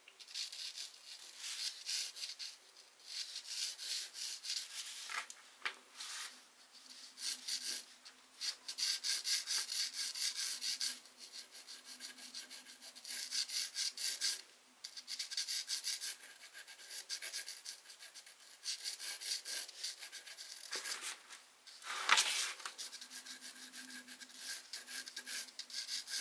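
Charcoal pencil scratching across a canvas sheet in quick, repeated sketching strokes, coming in bursts with short pauses between them.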